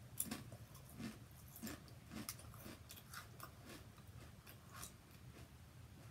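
Someone chewing barbecue potato chips with crisp, irregular crunches, about two a second, that thin out near the end.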